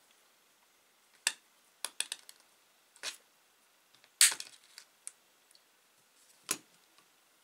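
Diagonal side cutters snipping off the excess ends of thin wire: several separate sharp snaps, the loudest a little past the middle, with fainter ticks between them.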